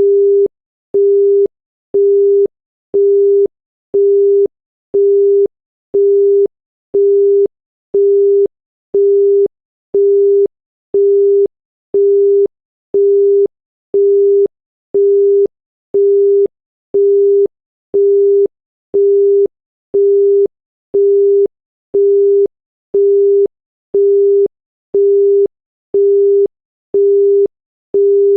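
Thai telephone busy tone: a single steady 400 Hz tone beeping half a second on and half a second off, one beep a second, signalling that the called line is engaged.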